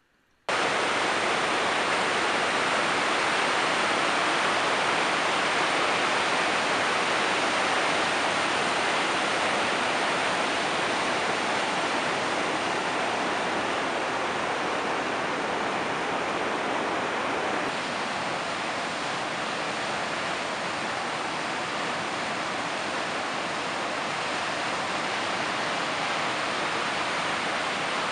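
Loud, steady rush of big-water river rapids, a continuous whitewater noise that starts abruptly about half a second in.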